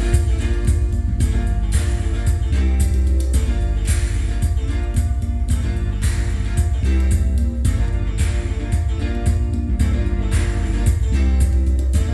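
Music with guitar over heavy bass and a steady drum beat.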